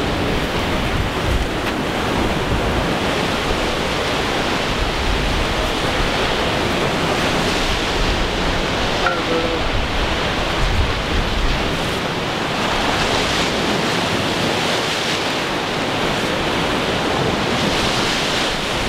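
Steady rush of ocean surf breaking and washing, with wind buffeting the microphone.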